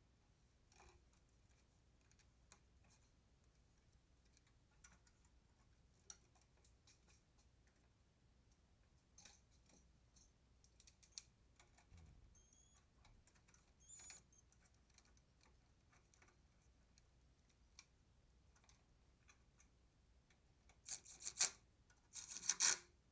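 Faint scattered clicks and rubbing of hands handling parts in a car's engine bay. Near the end come two louder scraping rasps as a long metal rod is worked down into the engine.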